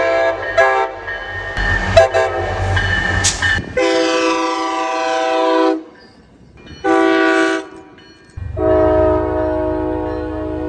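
Train air horn sounding a series of blasts, several tones at once. After some short toots it gives a long blast, a short one and a final long one, over a low locomotive engine rumble that comes back under the last blast.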